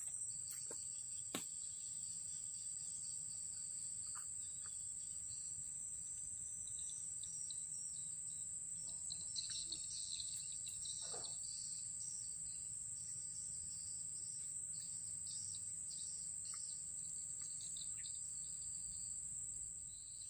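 Insects keep up a steady, high-pitched drone, with birds chirping briefly about halfway through.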